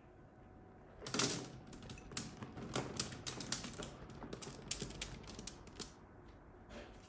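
Cubes of raw aubergine tipped from a glass bowl onto a parchment-lined baking tray, landing in a rapid, irregular run of soft knocks and clicks. It starts about a second in, is loudest at the first rush, and thins out to a few last pieces near the end.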